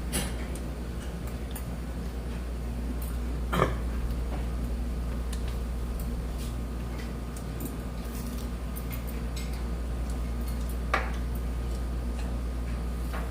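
Occasional clinks and knocks of dishes and cutlery at a meal, the two sharpest a few seconds in and later on, over a steady low hum.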